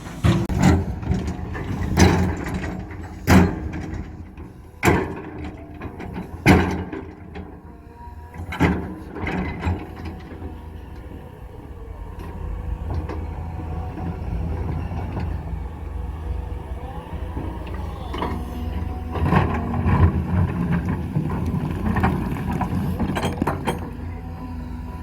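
Cat 320 hydraulic excavator's diesel engine running, with a series of sharp knocks and clanks of rock against the steel bucket as stones are set in place, about one every second or so for the first ten seconds. After that the engine runs louder and steadier, with a few more knocks near the end.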